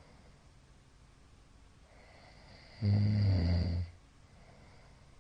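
A sleeping middle-aged man snoring: one loud, low-pitched snore lasting about a second, about three seconds in, led in by a faint high whistle of breath, with quiet between snores.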